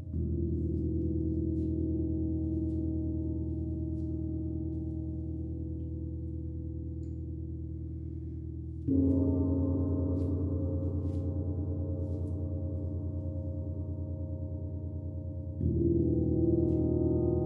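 Gong struck three times, at the start, about nine seconds in and near the end. Each stroke rings on in a long, slowly fading hum of many low tones with a fast pulsing waver.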